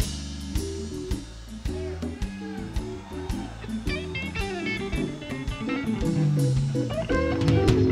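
Blues band playing: electric guitar with bent notes over bass guitar and drums.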